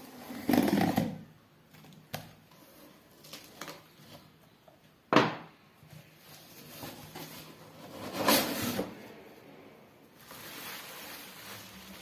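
Handling noises from unboxing a phone: rustling of the box and packaging just under a second in and again past eight seconds, with one sharp click about five seconds in.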